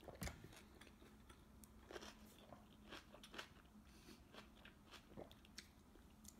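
Faint eating sounds: chewing, with scattered small clicks.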